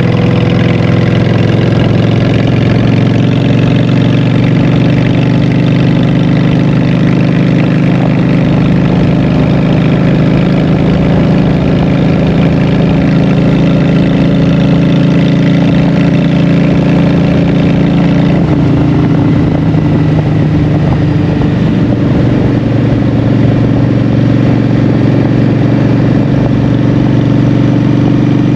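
Honda Shadow 750's V-twin engine through Vance & Hines Short Shots exhaust, running steadily under way while being ridden. The engine note changes a little about two-thirds of the way through.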